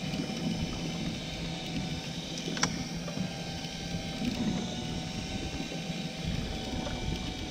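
Kristal electric deep-drop reel's motor whirring steadily as it winds a hooked fish up from the bottom, over a low rumble. A single sharp tick about two and a half seconds in.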